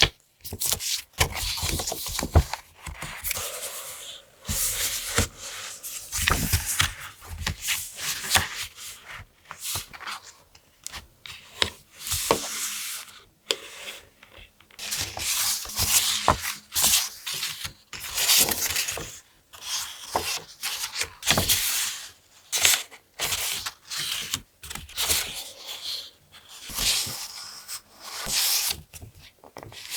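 Paper being rubbed and scraped by hand in repeated short strokes, with rustling between them.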